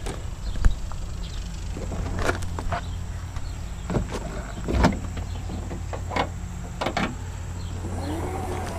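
Plastic retaining clips of a 2014 Dodge Durango's liftgate tail-light panel snapping loose as the panel is pried and pulled free: about six sharp clicks and knocks spread over several seconds, over a steady low hum.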